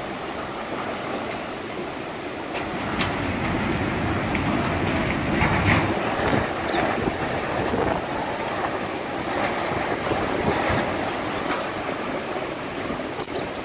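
Steady rush of storm wind through trees with heavy rain, the wind buffeting the microphone; a stronger gust swells about five seconds in.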